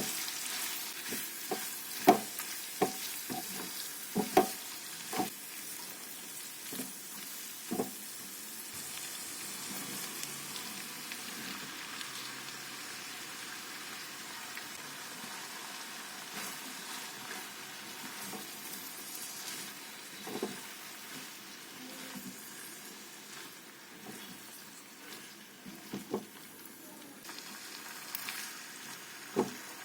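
Food sizzling steadily in a hot pan as it is stir-fried. A spatula knocks and scrapes against the pan now and then, most often in the first several seconds.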